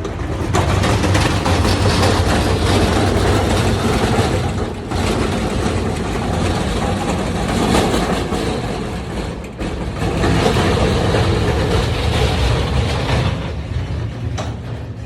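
A vehicle running, with steady low engine rumble and road noise.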